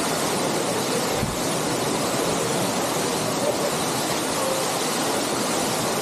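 A 50-foot waterfall pouring steadily into a rock pool: a constant, even rush of falling water.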